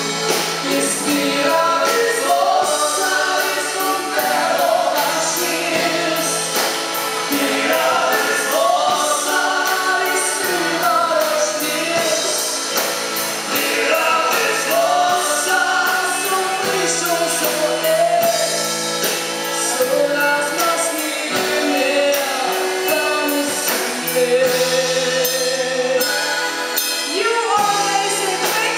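Live German folk band music: a woman singing over accordion, acoustic guitar and drum kit, with a steady beat.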